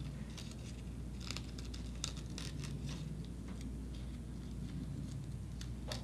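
Small scissors snipping at a crepe paper petal, with faint crinkling of the thin paper in the hands: a scattering of soft, short clicks and rustles.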